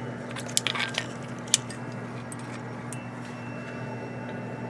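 A few light clicks and clinks of small furnace parts being handled, the sharpest about a second and a half in, over a steady low hum.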